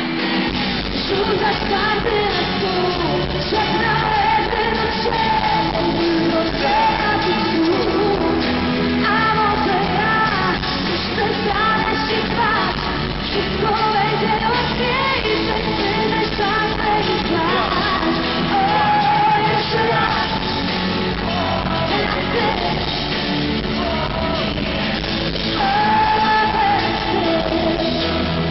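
Live pop band performing, with female and male vocals over electric bass, drums and keyboards, heard from the audience in a large hall.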